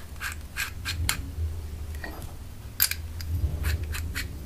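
Light metallic clicks and clinks of a steel drill chuck and its parts being handled and turned by hand. They come irregularly, in a cluster about a second in and another toward the end.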